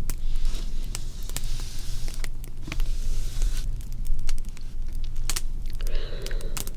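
Crackling fire: irregular sharp pops and snaps over a steady low rumble, with a soft hiss from about half a second to three and a half seconds in.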